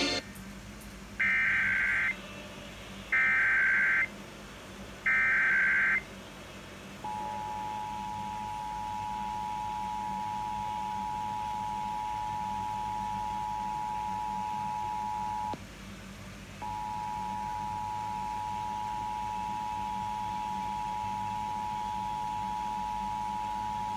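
Emergency Alert System test over FM radio. First come three short screeching bursts of SAME digital header data, about a second each. Then comes the two-tone attention signal (853 and 960 Hz played together), a steady dual tone that runs about eight seconds, breaks off for about a second, and resumes.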